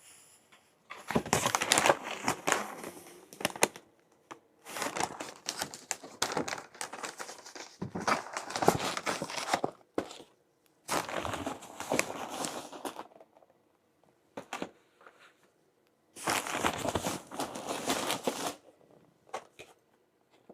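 Meal-delivery packaging crinkling and rustling as it is handled, in four long bouts with short pauses between.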